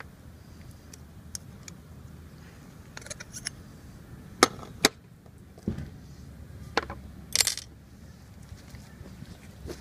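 Small metal parts and tools being handled on an aluminium case lid: a series of about seven separate sharp clicks and clinks, two of them close together a little before the middle, as a round metal cover plate and a screwdriver are picked up and set down.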